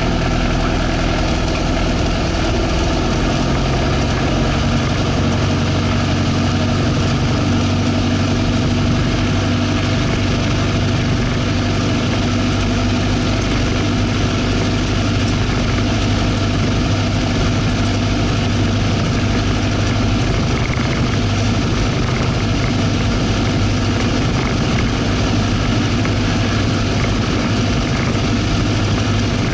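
Single-engine light aircraft's piston engine and propeller running at low taxi power, a steady drone heard from inside the cockpit. The engine note rises slightly about three seconds in, then holds steady.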